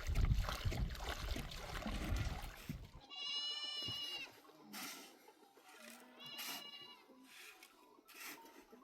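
Goat bleating: two short, high-pitched calls, one about three seconds in and a briefer one past the middle. Before the first call, a few seconds of rough, rumbling noise is the loudest sound.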